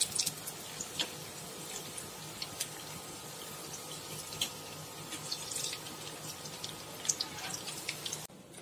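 Banana-flower vadais deep-frying in hot oil: a steady sizzling hiss with scattered crackles and pops. It cuts off just before the end.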